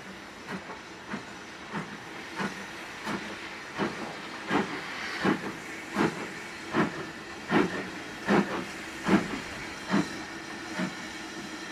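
Two steam locomotives, an Ivatt 2MT tank engine and a Riddles Standard Class 2, double-heading: regular exhaust chuffs about one every three-quarters of a second over a steady hiss of escaping steam. The beats grow louder as the engines approach and fade away near the end.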